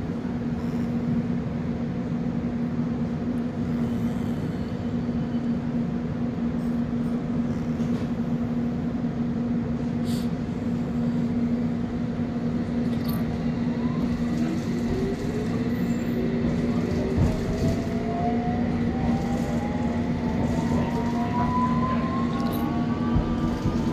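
Inside a London Underground Circle Line carriage (S7 Stock): steady rumble of the train running, with a constant low hum. From a little past halfway, the traction motors' whine rises in several parallel tones as the train picks up speed.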